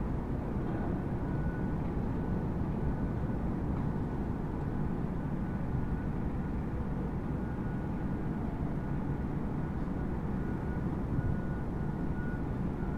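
Motor of an automatic aluminium roller shutter running as the curtain rolls slowly up, a steady low rumble with a faint, on-and-off high whine.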